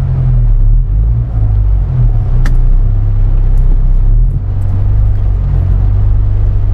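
Car engine and road rumble heard from inside the cabin while driving slowly over a wet, rough dirt road, steady and low, with a single sharp knock about two and a half seconds in.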